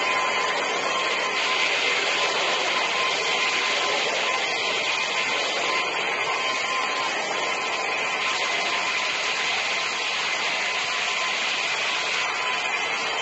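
Wet-and-dry vacuum's motor running steadily with a constant whine, with a brush scrubbing the wet carpet.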